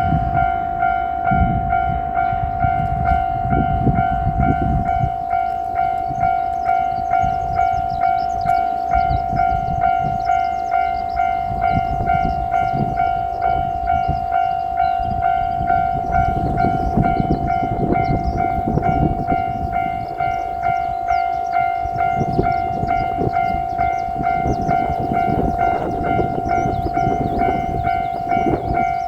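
Japanese level-crossing warning bell ringing in a steady, evenly repeating electronic ding, about once a second, over the low rumble of a diesel railcar passing over the crossing.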